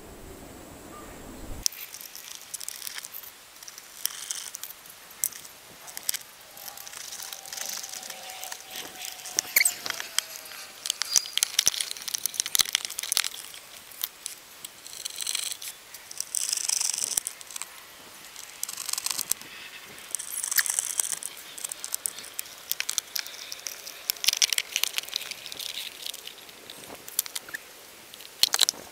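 Scattered clicks, knocks, short scrapes and rustling as pool filter pump parts are handled and fitted together during reassembly; the pump motor is not running.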